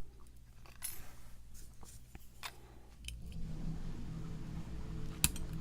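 Small metallic clicks and taps of a lock and picking tools being handled, with one sharper click near the end. A steady low hum comes in about three seconds in.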